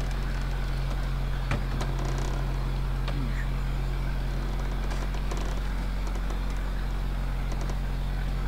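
Boat engine running steadily underway, a constant low hum. A single light click about a second and a half in.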